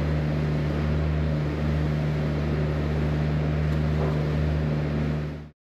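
Steady low mechanical hum of barn machinery running, fading out about five and a half seconds in.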